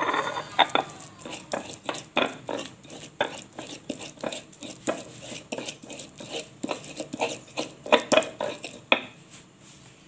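Metal cookware and utensils clattering: a run of irregular clinks and knocks against pots and pans, about two or three a second, that dies away about nine seconds in.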